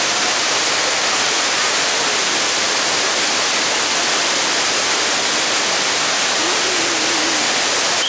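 Water rushing from a dam's open spillway gates and crashing into the channel below: a steady, heavy rush of white water with no let-up.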